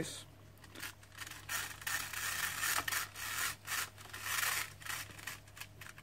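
Seat belt webbing being handled: the fabric strap rubbing and sliding through the hands and the retractor, with irregular scratchy handling noises and a couple of longer rubbing stretches.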